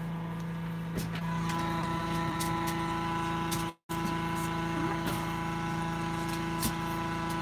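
Steady mechanical drone of a hot air balloon inflator fan running while the envelope is cold-inflated, with a few light clicks of handling noise. The sound cuts out for a split second about halfway through.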